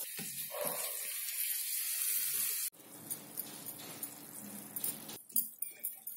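A spatula stirring grated coconut and melted jaggery in a nonstick frying pan. The sticky, wet mixture bubbles and scrapes as it cooks down toward the sticky stage. The sound drops abruptly about two and a half seconds in, and a few light clicks of the spatula come near the end.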